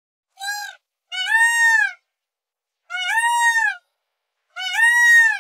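Peacock calling: one short cry, then three longer, arching wails, each about a second long, spaced roughly a second apart.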